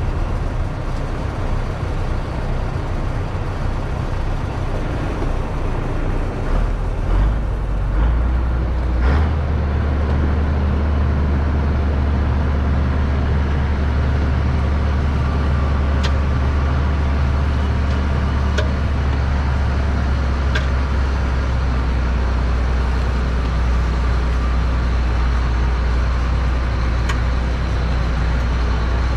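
A heavy engine running steadily. Its pitch shifts up between about seven and nine seconds in, then holds an even drone. A few faint clicks sound over it later.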